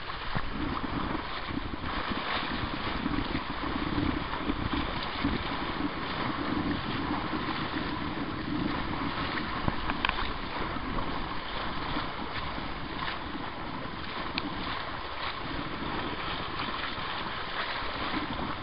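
Steady rush of wind buffeting the microphone and water washing past the hull of a small sailboat under way, with a couple of faint clicks along the way.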